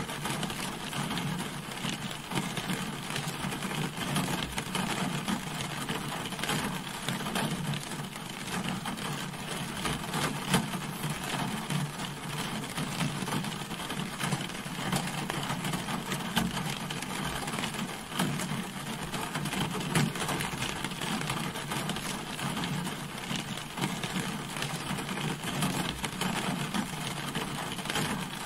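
Rain falling on a car: a dense, steady patter of drops that does not let up.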